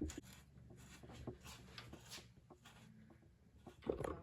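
Faint, scattered clicks and scraping of hand tools working loose the oil tank bolts on a motorcycle, with a brief louder knock about four seconds in.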